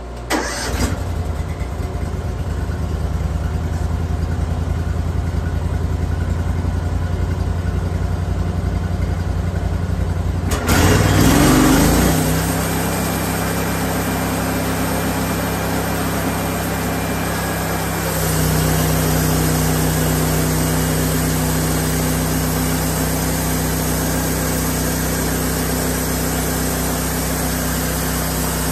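Band sawmill's engine starting right at the start and running steadily; about ten seconds in it revs up with a brief rough burst and settles at a higher steady pitch, and its sound steps up again a little louder near the eighteen-second mark.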